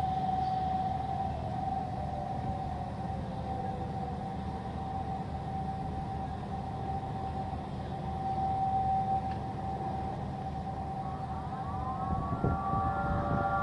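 Several Federal Signal outdoor tornado warning sirens sounding together in a monthly test. One steady tone holds throughout, while another siren's pitch falls over the first few seconds. Near the end a cluster of higher tones rises in pitch and comes in louder as a nearer siren joins.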